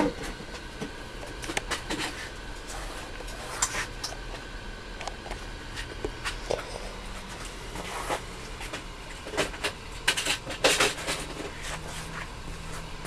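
Scattered small clicks and taps of tools and parts being handled on an electronics workbench, a few of them close together near the end, over a faint steady hum.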